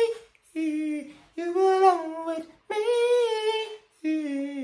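A high voice singing unaccompanied: several short held phrases with brief pauses between them, and no instruments behind it.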